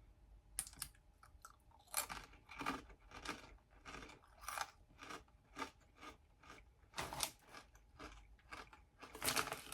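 Close-up crunching and chewing of Dipsy Doodles wavy corn chips: a string of short, crisp crunches about twice a second, thickening near the end. The chips are heavy and Frito-like, though not as hard as a Frito, with plenty of crunch.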